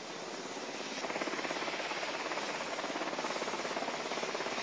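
Black Hawk helicopter on the helipad after landing, rotor and turbines still running, with a rapid even beat of the blades. It grows louder about a second in, then holds steady.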